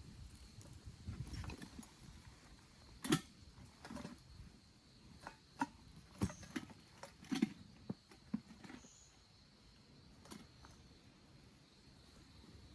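Scattered, irregular sharp clicks and knocks, some with a dull thud, the loudest about three seconds in, over a faint steady high-pitched hum.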